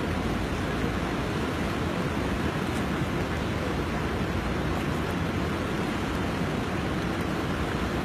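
Steady rushing of a fast-flowing flooded river, an even noise with no breaks.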